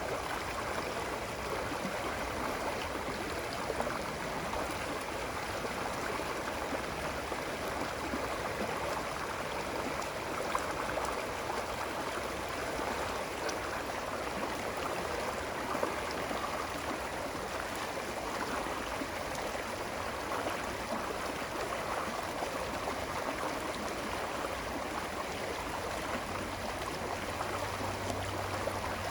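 Running water: a steady, even rush and burble of a stream flowing.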